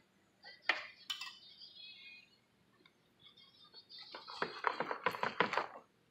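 Metal utensils clinking and scraping on a ceramic plate: two sharp clinks about a second in, then a quick run of clicks and scrapes for about a second and a half near the end.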